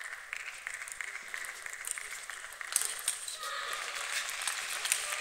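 Table tennis rally: the celluloid ball clicking sharply and repeatedly off the rackets and the table at an uneven pace, over the murmur of spectators' voices.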